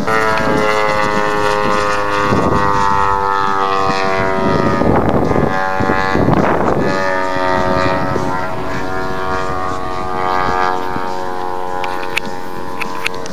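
RC model airplane engine running at high revs, a steady buzzing whine whose pitch drifts slightly up and down. Several short gusts of wind noise on the microphone break in, the strongest about five and six and a half seconds in.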